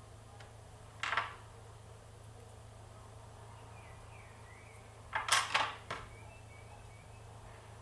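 Small metal lock pins and parts being handled on a hard surface: a brief scrape about a second in, then a quick cluster of clicks and rattles around five seconds in.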